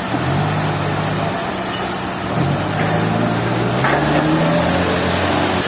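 A large engine running steadily, its pitch stepping up and down a few times as the load or throttle changes.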